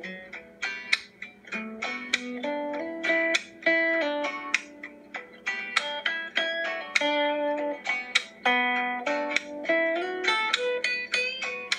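Guitar picked note by note in a melodic line, with some notes left ringing. It is heard as playback of a video through a computer's small speakers, with no bass.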